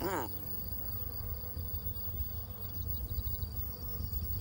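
Insects buzzing, with a steady high-pitched tone and a low rumble beneath. A man's voice is heard briefly at the very start.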